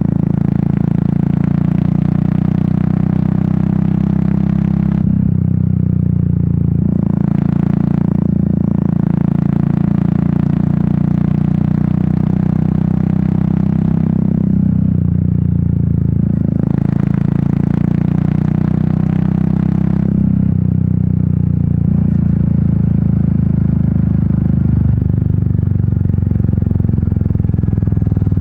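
Royal Enfield Meteor 350's single-cylinder engine and exhaust running on the road, with the pitch shifting slightly a few times as the throttle changes. A brighter rushing hiss swells and fades in stretches of a few seconds over the steady exhaust note.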